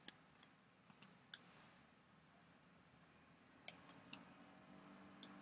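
Near silence with a few faint, sharp computer mouse clicks, four in all, spaced unevenly.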